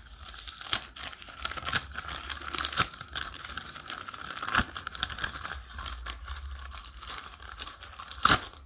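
Plastic wrapper of a phone case being torn open and crinkled by hand: a run of crackles and rips, with one sharp loud tear near the end.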